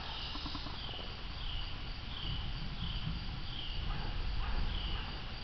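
Insects chirping in a steady, even rhythm, a short, slightly falling chirp about every three quarters of a second, over a low rumble.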